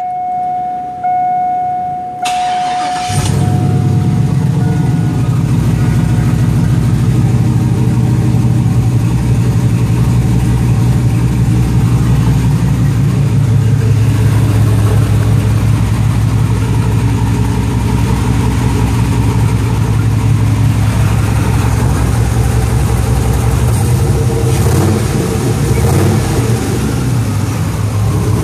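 A steady tone for about two seconds, then the truck's built iron-block engine cranks briefly, catches about three seconds in and settles into a steady idle. It runs with a little bit of a miss, which the owner puts down to old spark plugs that need replacing.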